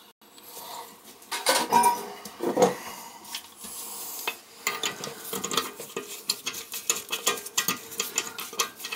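A few metal handling knocks, then a quick run of small clicks and clinks from about halfway in, as a quarter-inch driver with a deep socket turns a brass nut onto a toilet tank-to-bowl bolt.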